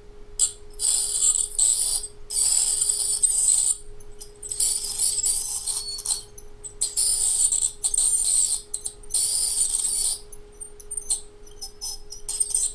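At-home electric dental scaler buzzing in about six high-pitched bursts of one to two seconds as its vibrating tip is pressed against tartar on the front teeth, with a steady low hum underneath. Near the end only a few light ticks. The tip vibrates only on contact with hard calculus, and it is breaking the deposits up.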